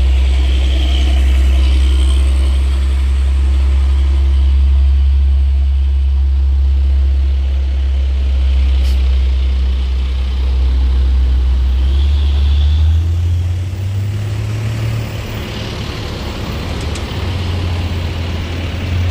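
Large vehicle engine running close by with a steady deep hum; its note shifts about thirteen seconds in.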